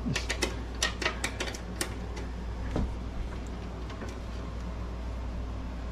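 Quick, light metal clicks and taps of a wrench working a bolt on the cast-iron top of a wood stove, a flurry of them in the first two seconds and then only a few, over a steady low hum.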